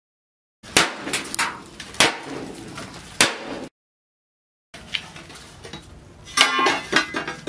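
Hammer strikes and metal clanks on a rusty steel tractor disc, several sharp blows in two short bursts, the last ones ringing, as a cracked piece of the disc is knocked loose.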